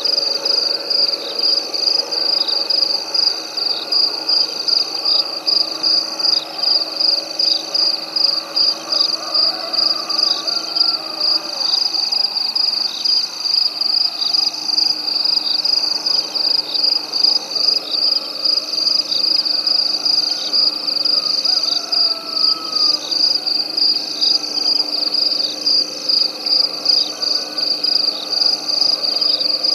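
Night chorus of calling frogs and insects: a steady high-pitched trill runs throughout, with a second call pulsing about once a second over it and fainter lower calls beneath.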